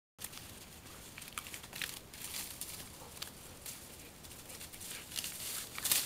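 Dry fallen leaves crunching and rustling underfoot, a few irregular crackles a second, growing louder near the end.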